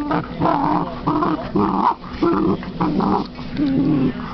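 Basset hound growling in play, a string of short rough growls about two a second.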